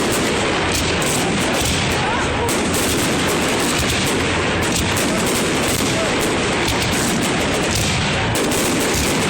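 Fireworks display: a dense, unbroken barrage of bangs and crackling shell bursts.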